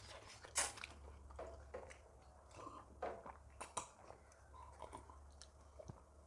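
Close-miked chewing and biting of food, with wet mouth noises and a few sharp clicks, over a steady low electrical hum.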